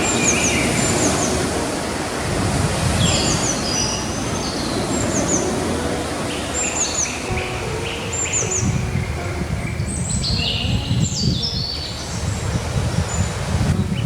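Gentle sea waves washing steadily onto a beach, the sound of the surf swelling and easing slightly, with birds chirping repeatedly in short, high, falling calls over it.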